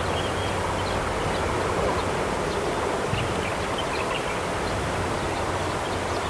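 Steady outdoor background noise with faint, scattered high chirps.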